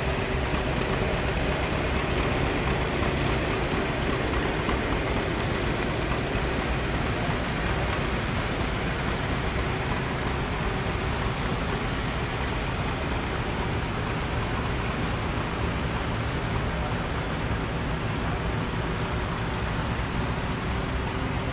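Old farm tractor engines running as the tractors roll slowly past one after another, a steady low engine note under a constant hiss.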